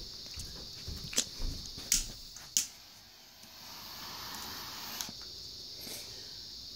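Handling noise of a phone being lowered and set down: a few sharp knocks in the first three seconds, then soft rubbing, over a steady high-pitched hiss.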